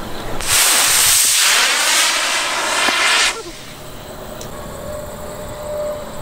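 Model rocket motor firing on an RC plane: a loud hiss starts about half a second in, burns for nearly three seconds, then cuts off suddenly.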